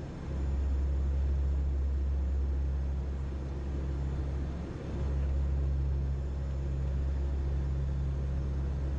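A steady low rumble that dips briefly near the start and again about five seconds in.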